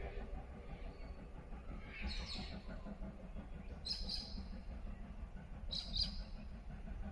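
A bird calling three times, about two seconds apart, each call a short high chirp of two quick notes, over a faint steady low rumble.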